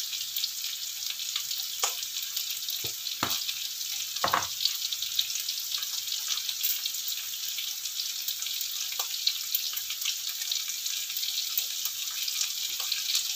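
Sliced bitter melon with dried anchovies and shrimp frying in oil in a wok: a steady high sizzle, with a few sharp clicks about two to four seconds in.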